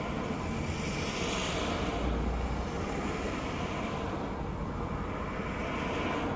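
Cars passing on the road, swishing by about a second in and again around four to five seconds in, heard from inside the cabin of a stationary 1964 Mercedes 220 SB. Under them runs a steady low rumble from the Mercedes' straight-six engine idling.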